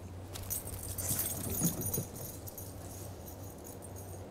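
Metal tags on a dog's collar jingling as the dog moves about, loudest about one to two seconds in, with a few light clicks.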